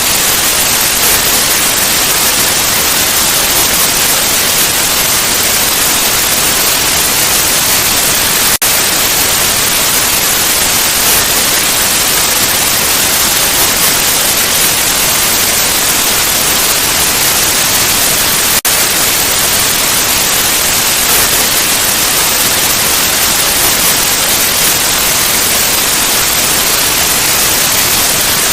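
Loud, steady static hiss like a dead broadcast channel, briefly cutting out twice, about a third and two-thirds of the way through.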